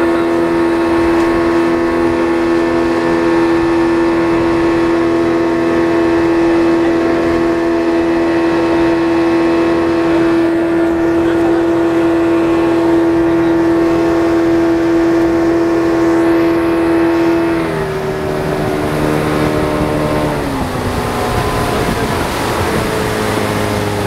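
Speedboat engine running at a high, steady pitch over rushing water and spray. A little past two-thirds of the way through it is throttled back, its pitch dropping in two steps as the boat slows.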